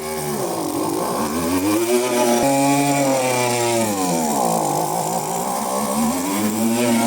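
Small two-stroke petrol engine of a handheld tool running after its fuel and return hoses were replaced and swapped into the correct setup. Its revs fall and rise again twice.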